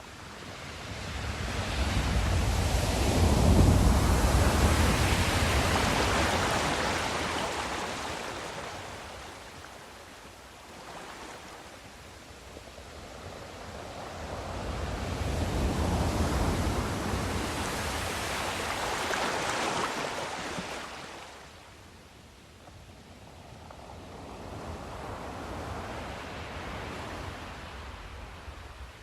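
Ocean surf: waves swelling and falling away three times, the loudest about four seconds in, another in the middle and a smaller one near the end.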